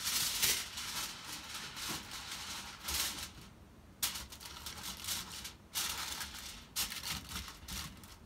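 Aluminium foil crinkling as it is folded and pressed down over a metal baking pan. It comes in irregular bursts, with a short break a little before the middle.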